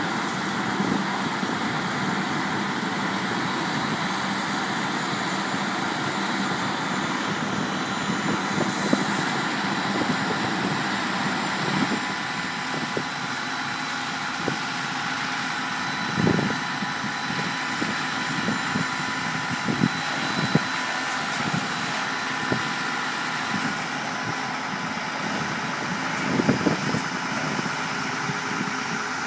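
Heavy engine of a piling rig running steadily, with a few scattered knocks and clanks, the loudest about halfway through and again near the end.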